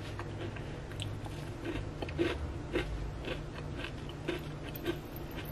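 A person chewing a crisp, slightly over-baked chocolate chip cookie with peppermint crunch chips, a steady run of short crunches about two a second.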